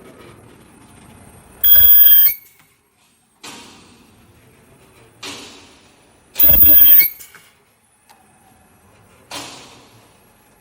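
Automatic vacuum cleaner bag making machine cycling: a loud, shrill burst about half a second long comes twice, roughly every four and a half seconds, with shorter fading hisses between.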